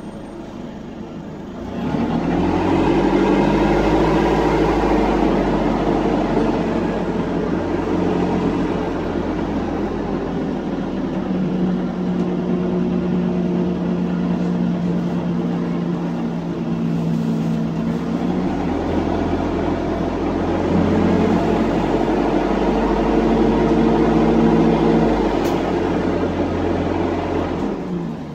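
Dennis Dart SLF bus's diesel engine with a blown exhaust, heard loud from inside the bus. It pulls away about two seconds in, its note rising and falling as it works through the gears, then dies away near the end as the bus slows.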